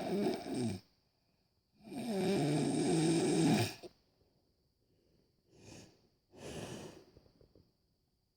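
A man snoring in his sleep: a loud snore ends just under a second in, a longer loud snore runs from about 2 to 4 seconds, then come two softer breaths.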